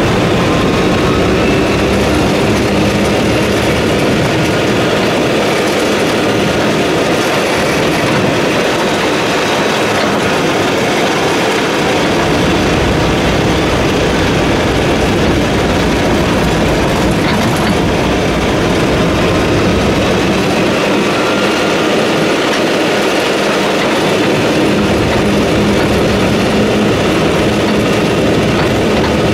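Steady running noise of a moving vehicle, with a faint engine tone underneath.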